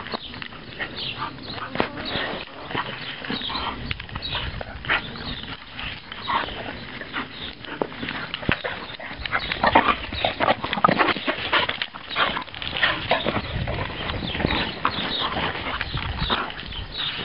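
Two bull terriers play-fighting, with a dense run of short, irregular dog vocalisations and scuffling.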